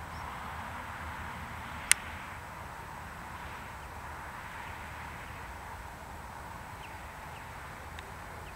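Steady outdoor background noise with no clear source, and one short, sharp click about two seconds in.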